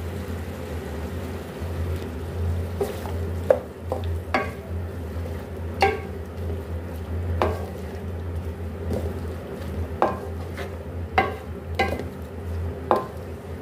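Wooden spatula stirring and scraping chicken and vegetables in a metal pan. From about three seconds in it knocks sharply against the pan roughly once a second, over a steady low hum.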